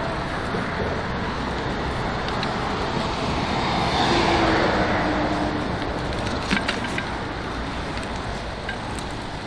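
Motorway traffic noise: a steady rush of passing cars' tyres and engines, swelling about four seconds in as a vehicle goes by. A few brief clicks come about two-thirds of the way through.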